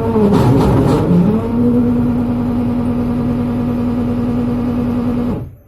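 Washing machine wash motor and gearbox running the agitator. The pitch wavers for the first second and a half, then settles into a steady hum before the motor cuts off abruptly near the end.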